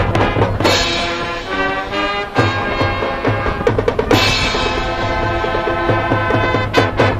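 Marching band playing: two long held wind chords, the second starting about four seconds in, with drum hits between them and a run of sharp drum strokes near the end.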